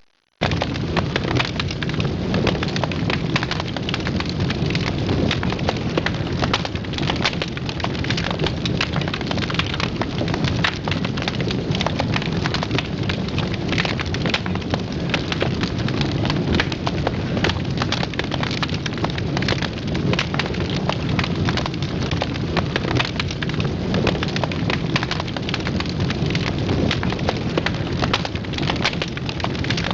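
Live fire burning in a fireplace: a steady low rumble of flames with dense crackling, many sharp clicks a second.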